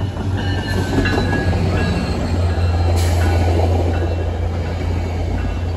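Caltrain diesel locomotive and its gallery cars passing close: a steady low engine hum, strongest from about halfway in, over the rumble and rattle of wheels on the rails, with faint high squeal tones and one sharp click about three seconds in.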